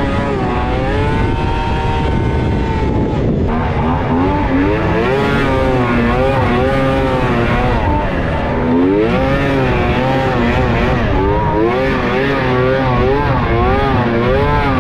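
Yamaha SXR 700 stand-up jet ski's three-cylinder two-stroke engine running loud, its revs rising and falling over and over, with a short drop about three seconds in.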